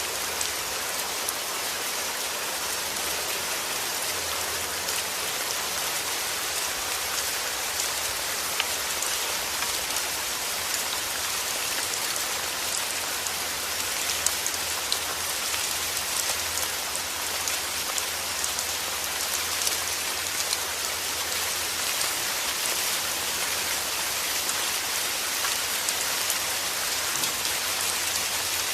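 Steady rain falling: an even hiss with many small scattered ticks of individual drops.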